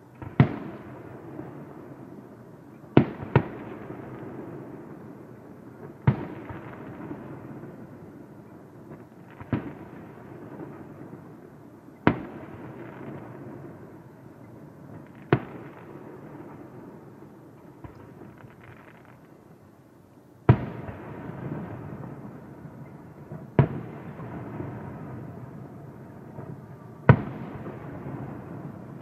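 Aerial firework shells bursting one after another: about ten sharp bangs roughly three seconds apart, each trailing off in a rolling echo.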